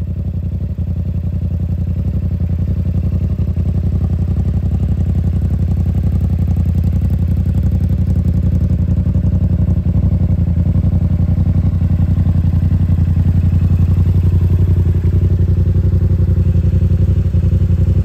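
Yamaha R7's parallel-twin engine idling steadily through a Yoshimura AT2 full titanium exhaust on its first start of the day, slowly getting a little louder.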